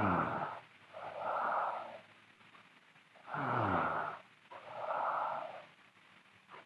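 A sleeping girl snoring loudly in a slow, even rhythm: two breath cycles, each a rasping snore that falls in pitch, followed about a second later by a breathy hiss.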